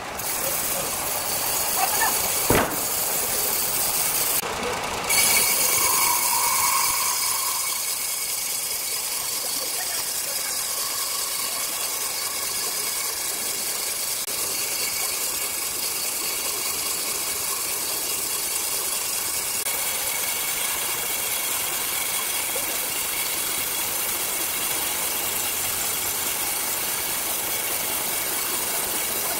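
Circular saw machine running steadily with a hissing whir, with one sharp knock about two and a half seconds in.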